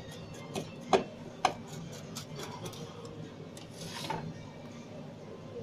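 Sharp metallic clicks and knocks of a pizza wheel cutter and metal pizza tray being handled on a counter. The two loudest come about a second in and half a second later, over a steady kitchen background hum.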